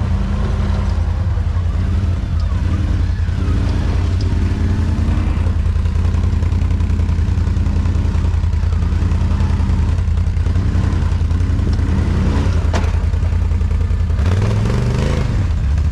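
ATV engine running hard, its revs rising and falling, with a single sharp knock near the end.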